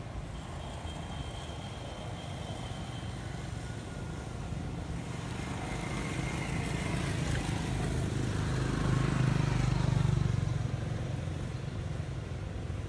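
A motor vehicle passing, its low engine rumble building to a peak about nine to ten seconds in and then fading away.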